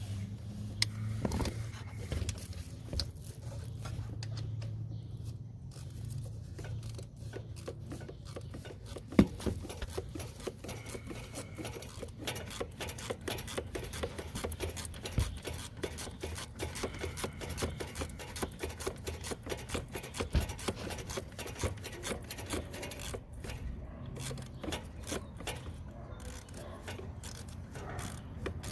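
Socket ratchet clicking in quick, even strokes as the starter's mounting bolts are worked loose from under the car, with a few louder knocks of metal against metal, the sharpest about nine seconds in.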